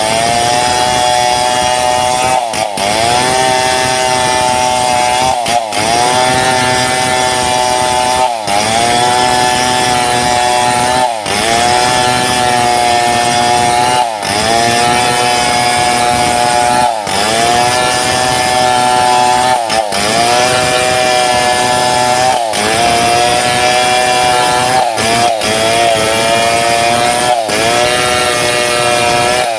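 Chainsaw running at high revs while cutting mahogany lengthwise, its engine pitch dipping briefly and recovering about every three seconds.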